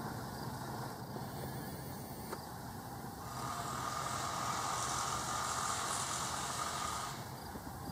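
Alco S1 diesel switcher running at low throttle as it pulls a short passenger train slowly past, a steady low diesel rumble. For about four seconds in the middle a steady hiss and a thin high whine rise over it, then fade.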